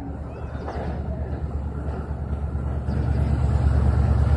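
Low rumble of an approaching train locomotive, growing steadily louder as it nears, with the end of a horn blast fading at the very start.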